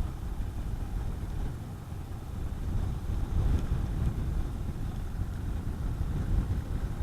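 Honda CB400SS's single-cylinder engine running as the motorcycle is ridden, with wind noise on the microphone.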